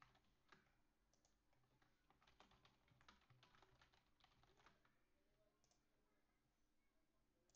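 Faint computer-keyboard typing: a quick, uneven run of keystrokes that stops a little under five seconds in, followed about a second later by a single click.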